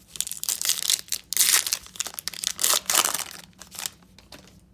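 Foil wrapper of a trading-card pack crinkling and tearing as it is opened, in a run of crackly rustles that are loudest in the middle and die away near the end.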